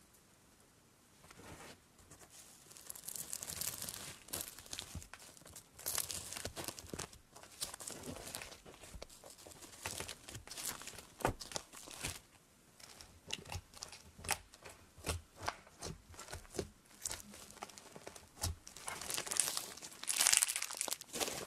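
Thick white fluffy slime being pressed, folded and squeezed by hand in a plastic tub, making dense irregular crackling, crinkling and squelching clicks. The crackles begin after about a second and a half of quiet and are loudest near the end, as the slime is squeezed between both hands.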